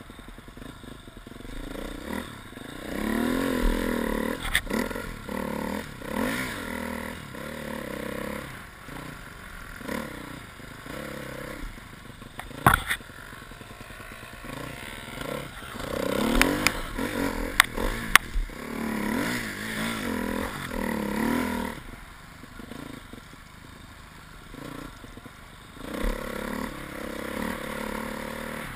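Husqvarna TE 250 enduro motorcycle engine revving up and down in repeated swells as it is ridden through snow. A few sharp knocks stand out, one a little before the middle and several a few seconds after it.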